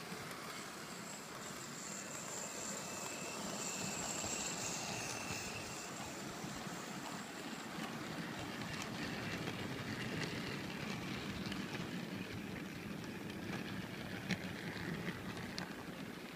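H0-scale model NSB Di 3 diesel locomotive running past with a train of container wagons. A thin, high motor whine comes in the first half, then the rolling clatter of the wagons' wheels on the track with scattered clicks.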